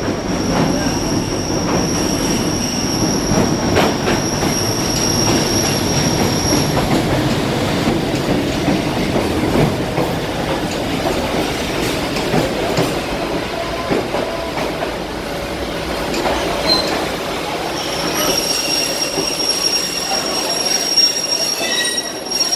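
Vietnam Railways passenger coaches rolling slowly alongside a station platform, a steady rumble and clatter of wheels on rail. A thin, high, steady squeal sounds over it for the first seven seconds or so and comes back about 18 seconds in.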